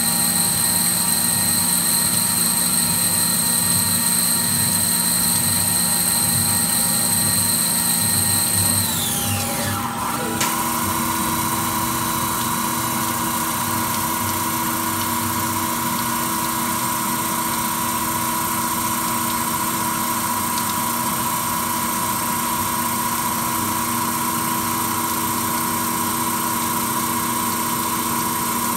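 Milling machine cutting a watch case, running with a steady high-pitched spindle whine that falls away about nine seconds in, followed by a lower, steady machine hum with coolant flowing.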